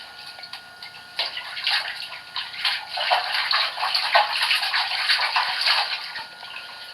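Water splashing and sloshing in irregular bursts as a hen is washed in a shallow bath.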